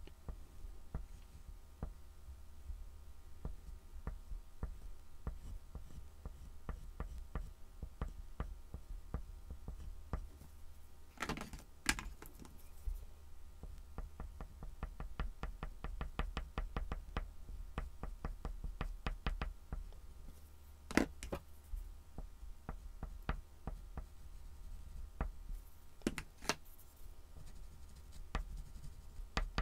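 Soft oil pastel stick worked in short, quick strokes on a black-painted MDF board, making a run of light taps and scratchy ticks, about four or five a second in places. A few louder knocks come near the middle and toward the end, over a faint steady hum.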